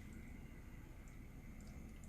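Levoit Classic 300S ultrasonic cool-mist humidifier running at its highest mist setting: a faint steady hum and hiss with a few soft ticks.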